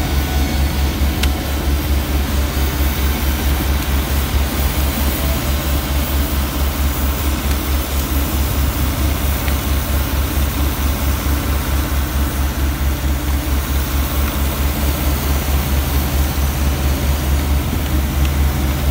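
An engine running steadily with a low, fast, even throb. It is most likely the hydraulic power pack driving a Darda hydraulic rock splitter that is wedged in a drilled hole, forcing a slate block apart.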